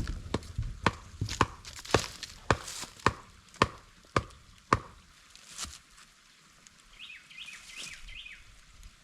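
Repeated sharp chopping strikes on wood, about two a second, stopping about five seconds in. A few short high chirps follow near the end.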